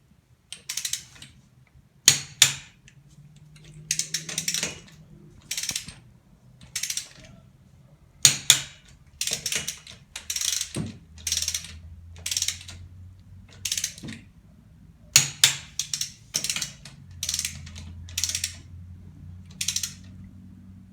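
Ratcheting torque wrench on an extension bar clicking in short runs, about once a second, as it is swung back on each stroke while wheel nuts are tightened to 110 Nm, with a few sharper single clicks among them.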